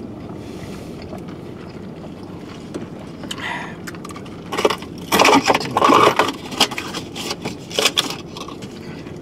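Irregular rustling and scraping from hands handling a wrapped sandwich and its paper, mixed with eating noises, starting a few seconds in and busiest near the middle, over a steady low hum in the car cabin.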